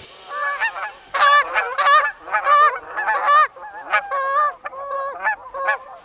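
A flock of Canada geese honking, a fast run of short nasal honks at about two or three a second, some calls overlapping.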